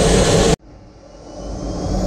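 Jet trainer's engine and airflow noise in the cockpit, steady, then cut off suddenly about half a second in. The jet sound then fades back up, with a faint rising whine.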